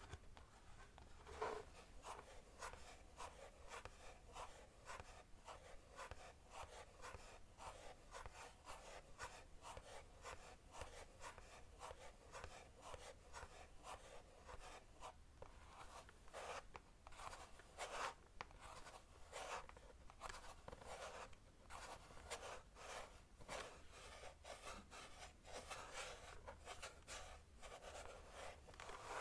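Quiet, light typing and tapping on a mechanical keyboard: a soft, uneven stream of small key clicks.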